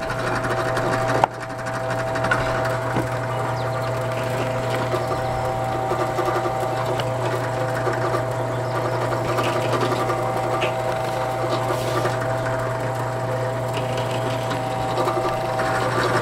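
Drill press motor running steadily while a countersink drill bit for No. 6 wood screws bores holes in wooden end pieces, with a sharp click about a second in.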